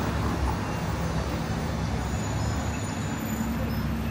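Car driving: steady road noise with a low rumble.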